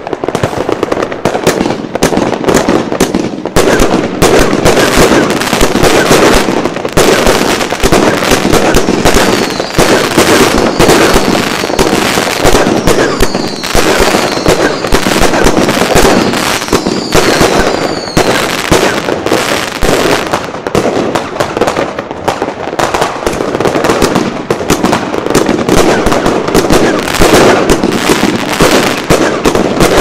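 Evolution Fireworks 'Snowstorm' consumer cake box firing continuously: a dense, rapid, unbroken string of launch shots and aerial bursts.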